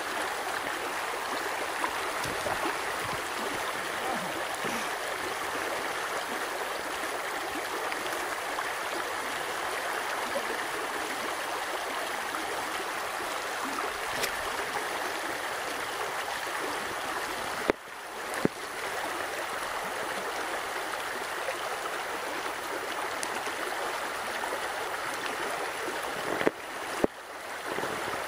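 Shallow creek water running steadily over its stony bed. A few sharp knocks come in two pairs, one just past the middle and one near the end.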